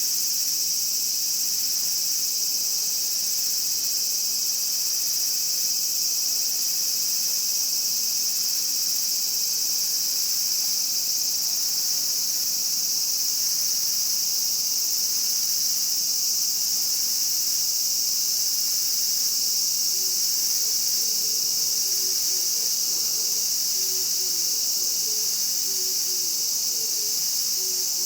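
Japanese cicadas giving a continuous, steady high-pitched drone that does not let up.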